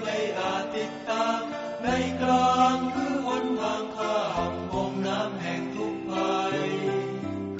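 Music with a chant-like singing voice, its melody moving from note to note over held bass tones.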